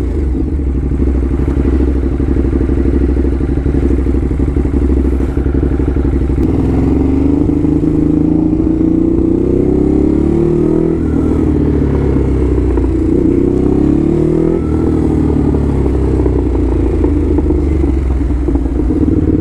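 Ducati Hypermotard's L-twin engine running under way; from about six seconds in the revs climb, drop and climb again as it accelerates, then settle back to a steady lower note.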